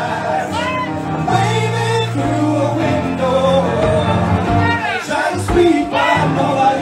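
Live sing-along: a man singing into a microphone with a group of voices singing along over musical accompaniment.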